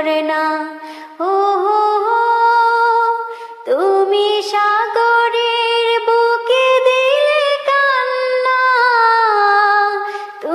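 A woman singing a Bengali Islamic song (gojol) unaccompanied. She holds long, wavering notes, with short breaks about a second in and about three and a half seconds in.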